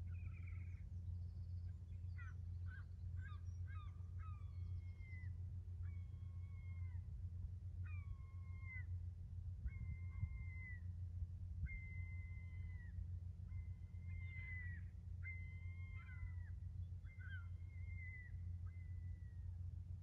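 Seagulls calling: a string of drawn-out calls that rise, hold and fall, about every second or two, with a quick run of short notes a few seconds in. Under them runs a steady low drone, which the recordist hears as distant ships.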